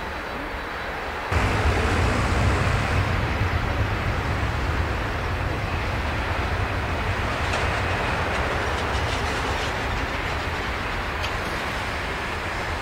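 Airbus A340-300's four CFM56 jet engines running at high power as the airliner rolls down the runway away from the listener: a steady, heavy roar with a deep rumble underneath that jumps louder about a second in.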